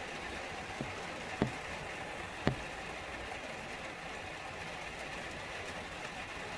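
Steady hiss of a rain shower falling, with a few sharp taps, the loudest about two and a half seconds in.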